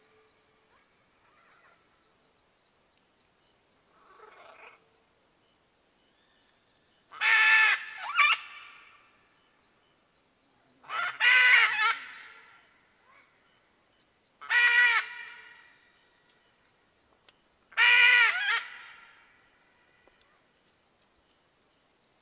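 Red macaw (arara-vermelha) giving loud, harsh squawking calls: a faint one about four seconds in, then five strong ones a few seconds apart, two of them close together as a double call.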